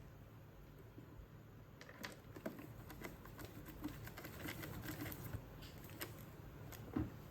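Faint, scattered plastic clicks and rustles of a cordless vacuum cleaner's parts being handled, starting about two seconds in, with a louder knock near the end.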